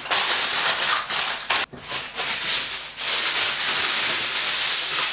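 Aluminium foil crinkling and rustling as it is folded and pressed tightly around a dish, with a short break about a second and a half in. Near the end, more foil is pulled off the roll.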